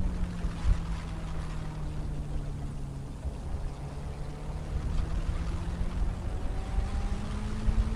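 Benelli BN600i inline-four engine running on the move, its note sinking slowly as the bike eases off and then climbing again as it accelerates. Heavy wind rush on the microphone sits over the exhaust.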